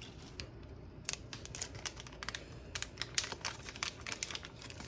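Quick, irregular light clicks and taps of small plastic pregnancy-test kits and their packaging being opened, handled and set down. The clicks are sparse at first and come several a second from about a second in.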